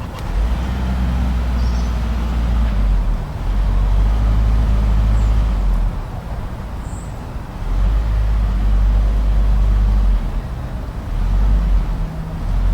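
Blizzard wind blowing in gusts: a deep rumble with a hiss above it that surges and eases about four times, each surge lasting two to three seconds.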